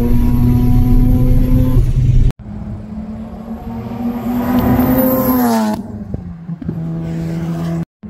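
Turbocharged Mazda RX-7 FD's 13B twin-rotor engine. First it drones at a steady pitch, heard inside the cabin. Then, heard from beside the track at wide-open throttle, it climbs in pitch as the car approaches and passes about two-thirds of the way through, where the pitch and level drop sharply into a lower steady tone as it goes away.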